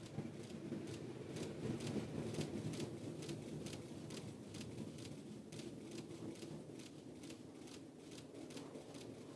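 Distant rumble of an Ariane 5 ECA's solid rocket boosters and Vulcain main engine as the rocket climbs away, low-pitched and slowly fading, with a fast, even run of faint ticks over it.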